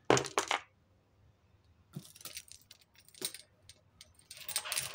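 Costume jewellery (metal chains, bracelets and beads) clinking and jangling as hands rummage through a pile of it. A loud clatter comes right at the start, then scattered clinks, and a denser jangle near the end as a wire necklace is pulled out of the pile.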